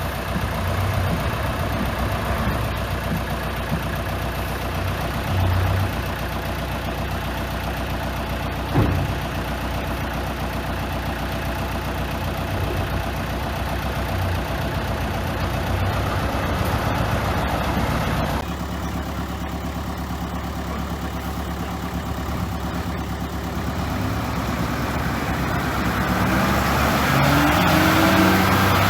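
Heavy diesel earthmoving machinery running, a bulldozer and dump trucks at work, with a steady engine drone. A single sharp knock comes about nine seconds in, and the engine note grows louder near the end.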